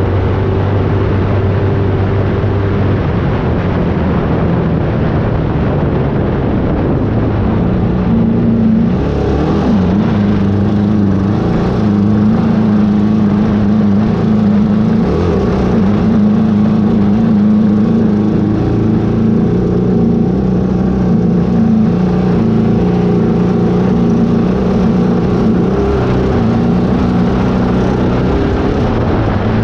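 An engine running steadily throughout. About nine seconds in its note steps up and then wavers up and down as the throttle varies.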